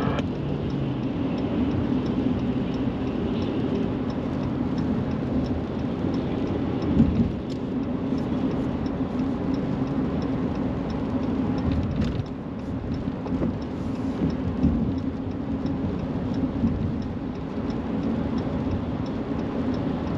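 Steady engine drone and tyre noise on a wet highway, heard from inside a moving vehicle's cab. A faint, even ticking sits above the drone.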